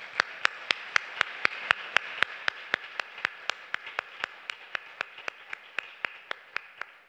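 Audience applauding, with one person's claps close to the microphone standing out sharply at about four a second. The applause slowly dies away near the end.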